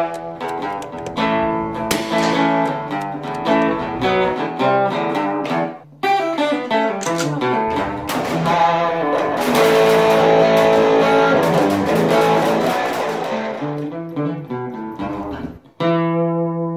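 Guitar music: quick picked notes, thickening into a fuller, denser passage in the middle, then a single chord struck near the end and left ringing.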